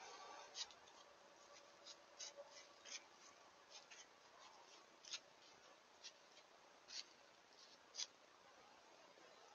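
White-tailed deer hooves crunching through dry, frosty leaf litter: irregular short crackles, one every half second or so, the last about eight seconds in, over a faint steady hiss.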